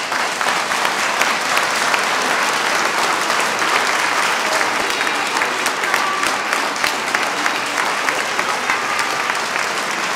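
A large church congregation applauding, many hands clapping steadily without a break.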